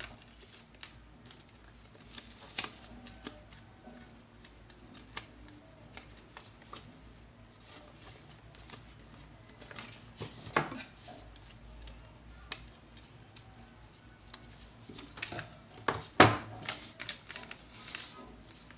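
Scissors, a paper pattern and fabric being handled as the pattern is laid on cloth and cut: scattered soft rustles and sharp clicks, the loudest click about 16 seconds in.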